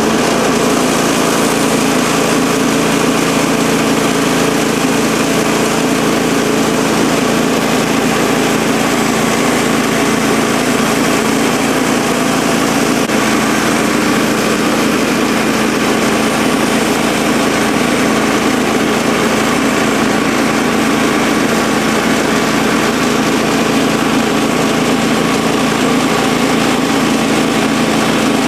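Woodland Mills HM130MAX portable bandsaw mill running, its 14 hp Kohler Command Pro engine at a steady speed while the band blade makes a pass through an ash log.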